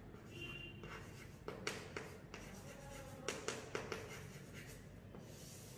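Chalk writing on a chalkboard: faint scratching strokes with sharp taps as the chalk strikes the board, in two clusters about a second and a half and three and a half seconds in.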